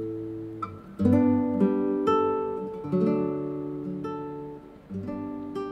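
Background music: an acoustic guitar plucking chords, a new chord about once a second, each ringing and fading.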